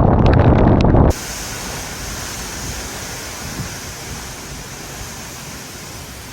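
Hurricane-force wind buffeting the microphone in a loud, low rumble that cuts off abruptly about a second in. It gives way to a quieter, steady rushing hiss of storm wind.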